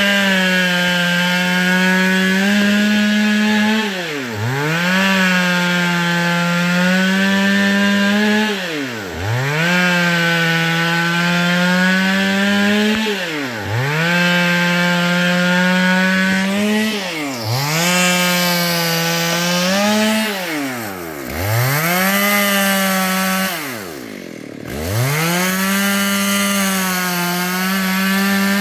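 Saw cutting wood: a steady pitched drone with many overtones that dips sharply in pitch and climbs back about every four to five seconds.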